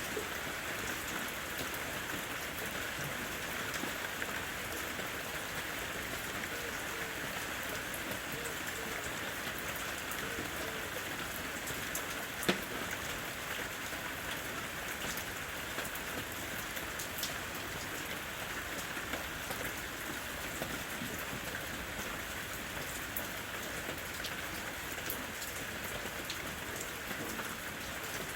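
Steady rain falling in a forest, an even hiss with scattered individual drops ticking, and one sharper drop about halfway through.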